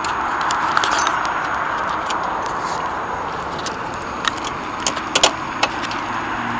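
Steady road-traffic noise, with a few sharp metallic clinks of hand tools between about four and five and a half seconds in.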